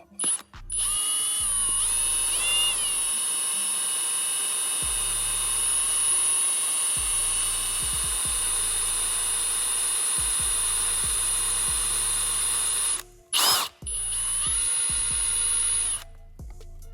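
Power drill running under load, drilling out a broken exhaust manifold bolt in an LS cylinder head through a drill-guide template with the first bit. Its motor whine rises in pitch as it gets up to speed, stops briefly near the end with one short burst, runs again and cuts off.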